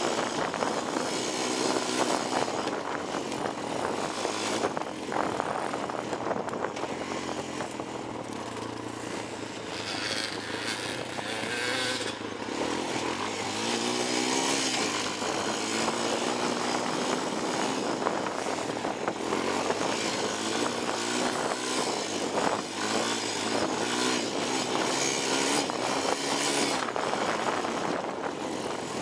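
Honda 250EX ATV's single-cylinder four-stroke engine running on the move, its pitch rising and falling again and again as the throttle is worked, over a constant noisy rush of wind and trail noise.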